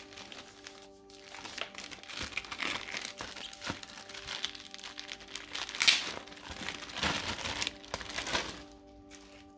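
Packaging crinkling and rustling as it is handled in irregular strokes, loudest about six seconds in, over background music with sustained notes.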